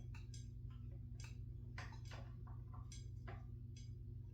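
Irregular light clicks, two or three a second, from a cheap screwdriver working the screws on a ceiling fan's blade mounts, over a steady low hum.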